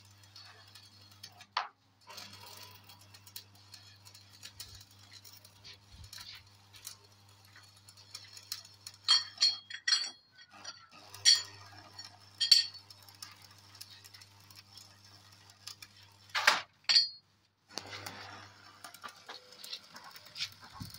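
Sharp metallic clinks from steel angle iron being handled and struck during frame work, a handful of strikes spaced over several seconds, each with a short ringing tone. A faint steady low hum runs underneath.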